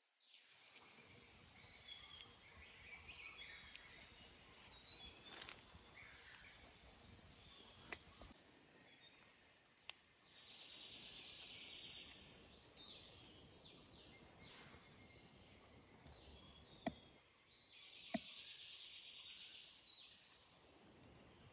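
Faint forest ambience with scattered high bird chirps. Twice, near the middle and again near the end, a buzzing trill lasts about two seconds, and a few sharp clicks are heard.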